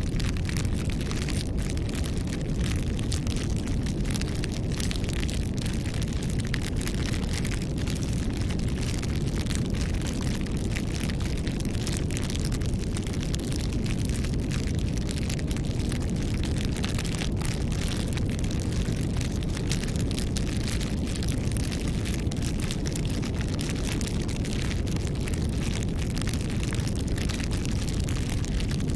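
Campfire burning, a steady low rush of flame under dense, constant crackling.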